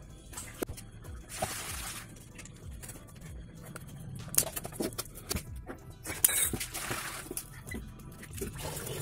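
Background music over clicks, cracks and short scraping rasps as a handmade cardboard miniature truck cab is pulled apart by hand.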